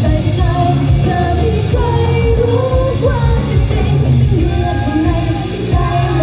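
Idol-pop song playing loud over stage PA speakers: a woman singing into a microphone over a backing track with heavy bass.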